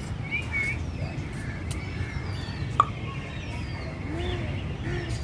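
Birds chirping: many short, high, falling chirps, with two faint low arching calls about four seconds in and a sharp short sound near the middle, over a steady low rumble.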